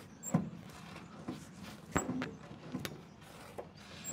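Several scattered light clicks and knocks from hands working on parts of a small aircraft engine, the sharpest about halfway through.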